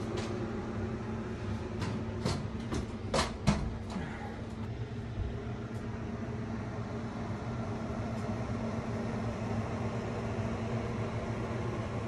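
Steady low machine hum, with a quick run of sharp clicks and knocks about two to three and a half seconds in.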